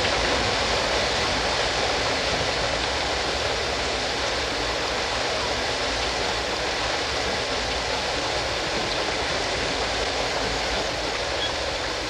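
Steady rushing noise of a jungle nature-sounds recording, with no single animal call standing out.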